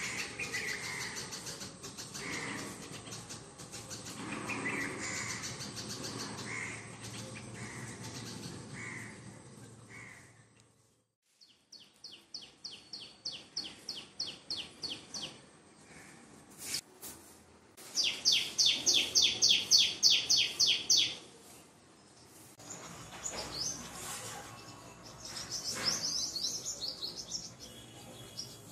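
Birds chirping: short calls about once a second at first, then after a brief drop-out, trills of rapid high notes repeated about four times a second, the loudest run about two-thirds of the way through.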